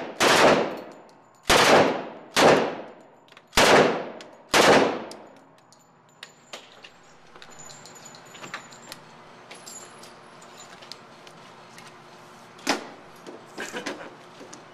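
Five single gunshots at roughly one-second intervals, each followed by a ringing echo. Then quieter metallic clinks and clicks of the gun being handled.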